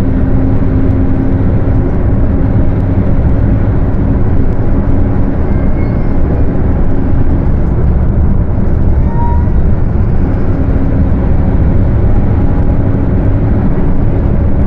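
Mercedes-Benz OF 1721 bus running on the road, a steady loud rumble, with the differential's drone sounding as a steady tone that fades about three seconds in and comes back after about ten seconds.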